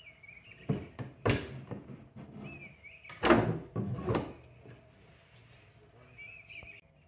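Wooden cabinet door of an old washstand being swung shut and pushed closed by hand: a cluster of knocks about a second in, then a louder clunking close about three seconds in, with faint high squeaks in between.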